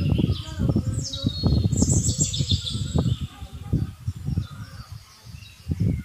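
Small birds chirping and calling, with a few quick falling whistles about a second or two in. Underneath is a loud, irregular low rumbling and buffeting, which is the loudest sound.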